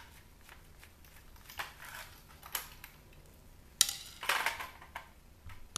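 Screws being backed out of a CD changer's top panel with a screwdriver: scattered clicks and scrapes of metal on metal and plastic, with a louder run of clinks and rattling a little less than four seconds in.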